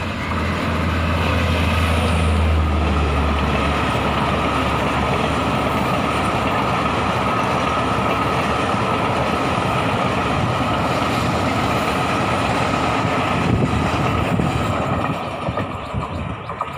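Passenger train led by an electric locomotive passing close by over a concrete rail bridge: a deep locomotive hum for the first few seconds, then the steady rumble and rattle of the coaches' wheels on the rails with a faint steady whine above it, easing off near the end as the last coaches go by.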